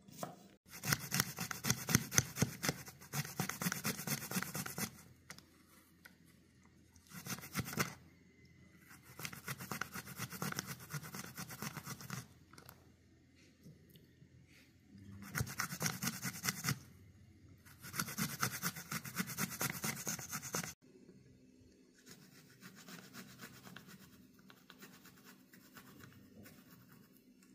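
Garlic cloves being grated on a small handheld metal box grater: bursts of rapid scraping strokes, several in a row with short pauses between, fainter near the end.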